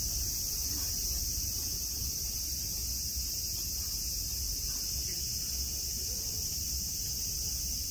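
Steady chorus of summer cicadas, a continuous high-pitched shrill that doesn't let up, over a low rumble.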